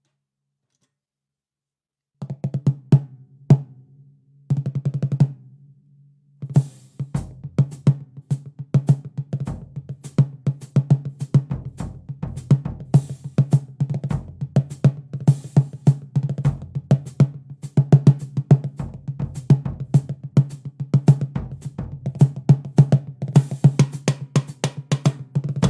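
Drum kit played: a few snare hits starting about two seconds in and a short roll, then from about six seconds in a steady groove of snare and bass drum with occasional cymbal crashes.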